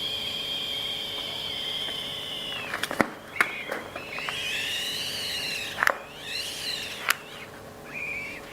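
Balloon squealing as air escapes through its stretched neck: a long steady squeal that breaks off, then shorter squeals that rise and fall, with a few sharp snaps between them.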